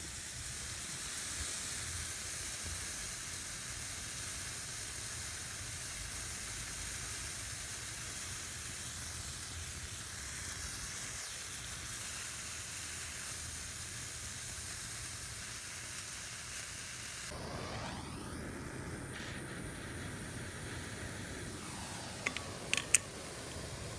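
A potassium nitrate and powdered Oreo cookie mixture burning slowly with a steady hiss and sizzle, still reacting but only weakly. A few sharp pops near the end.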